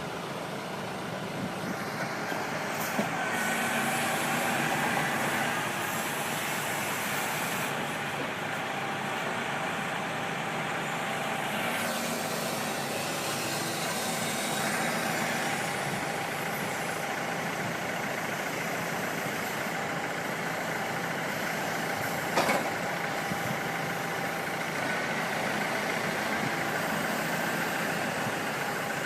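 Heavy vehicle engine running steadily, with a single sharp knock about three quarters of the way through.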